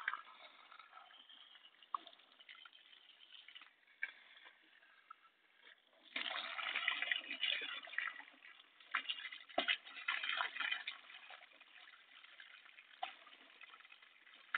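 Water splashing against plastic in two short spells, about six seconds in and again around nine to eleven seconds, with a few sharp knocks in between; otherwise faint.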